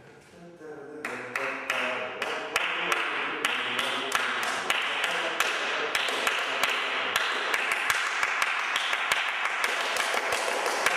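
Two people clapping their hands in a steady rhythm, about three claps a second, starting about a second in.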